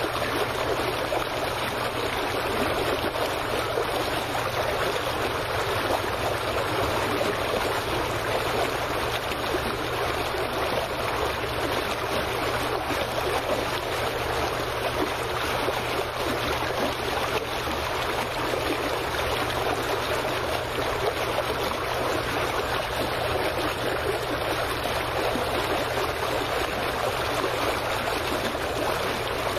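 Small waves lapping and trickling against the dock just below the microphone: a steady, even splashing of water with no pauses, over a faint low hum.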